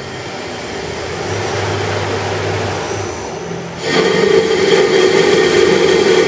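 CNC lathe turning a metal bar with coolant flowing: steady spindle and cutting noise, which steps up about four seconds in to a louder, steadier hum with a few high ringing tones.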